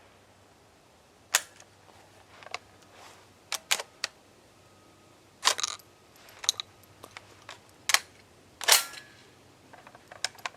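Sharp metallic clicks and clacks, about a dozen spread out, of a Centurion BP12 shotgun's action and box magazine being worked by hand. The shotgun is being cleared after a feeding failure: the magazine does not seat or feed and the round does not cycle the action.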